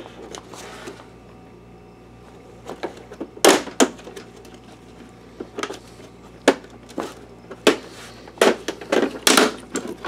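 Plastic top cover of an Optoma WU515 projector being pried off: a series of sharp snaps and clicks as its clips let go, the loudest about three and a half seconds in and quicker ones close together near the end.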